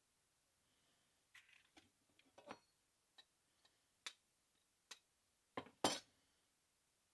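A scattering of light taps and clinks as eggshells and a dish are handled while eggs are cracked open, with a louder double knock near the end.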